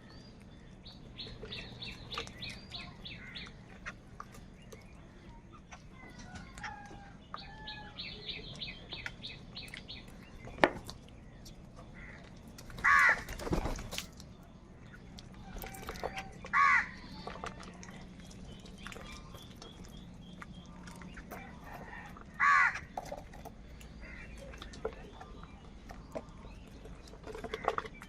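Crows cawing: three loud, harsh single caws spaced a few seconds apart. Two quick runs of rapid high chirping from smaller birds come in the first ten seconds.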